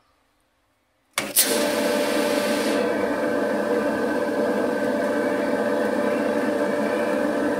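Maytag Performa clothes-dryer motor, fitted with new bushings and running with the drum removed, starts suddenly about a second in and runs steadily. It is spinning properly rather than seizing.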